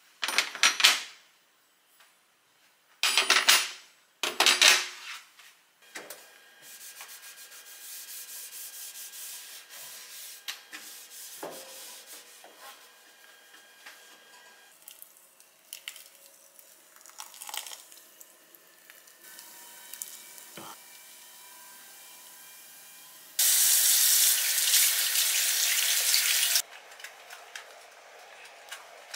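Metal pan supports being set back onto a gas hob, three loud clanks, then a cloth rubbing and wiping over a glass cooktop with small knocks. Near the end, a tap runs for about three seconds.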